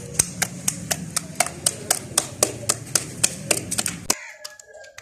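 Rhythmic hand slaps, about four a second, as roti dough is patted out between the palms for the tandoor, over a low steady rumble. The slaps stop abruptly about four seconds in.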